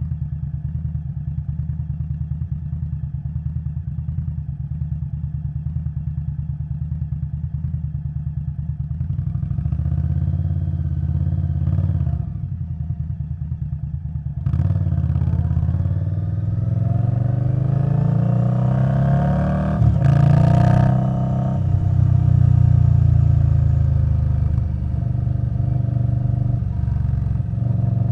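2021 Indian Scout Bobber Twenty's V-twin through a V&H Twin Slash exhaust, running steadily at low revs. From about halfway it gets louder and the revs rise and fall as the bike accelerates through the gears.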